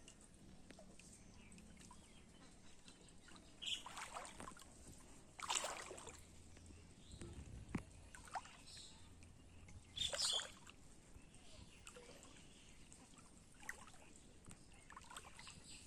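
Intermittent water splashes and sloshing in shallow water: a few short bursts, the clearest about four, six and ten seconds in, over a quiet outdoor background.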